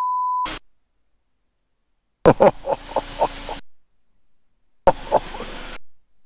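A steady single-pitch electronic beep lasts about half a second at the start. It is followed by dead silence, broken twice by short bursts of muffled voice and cabin noise that cut in and out abruptly, as on a light aircraft's headset intercom during landing.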